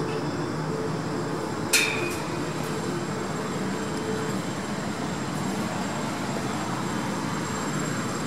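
Steady whirring hum of rooftop air-conditioning units running, with one sharp clink a little under two seconds in.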